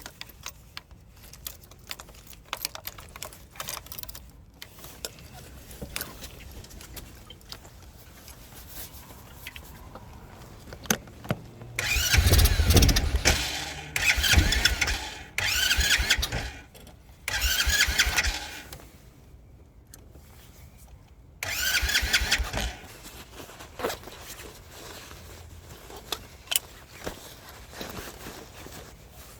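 Icebear Fuerza motorcycle's electric starter cranking the cold engine in four separate tries of one to two and a half seconds each, without it catching. The owner takes the failure to start when cold for too lean an air-fuel mixture. Small clicks and handling noises come before the first try.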